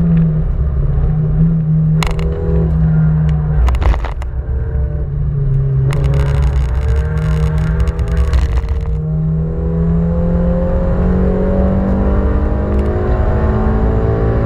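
Inside the cabin of a 1989 Honda Civic ED7 on a race circuit: its original 130 hp four-cylinder engine, lightly tuned, runs steadily, then drops off briefly about four seconds in with a few knocks. A burst of clattering follows from about six to nine seconds, and the engine then climbs steadily in pitch as it accelerates.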